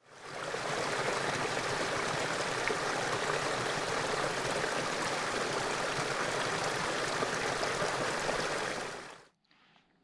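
Steady rush of running water, like a small stream. It fades in at the start and cuts off abruptly near the end.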